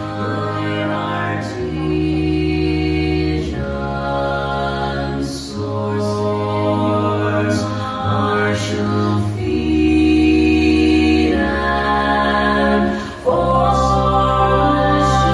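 Choral music: sustained sung chords changing every second or two, with a sharp accent a little before the end.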